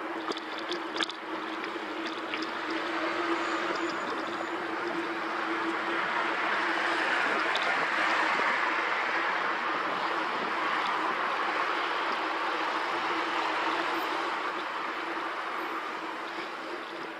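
Steady rushing noise of a bicycle ride: wind over the handlebar camera's microphone and tyres rolling on tarmac, swelling louder in the middle, with a steady low hum underneath. A few light rattles of the bike sound about a second in.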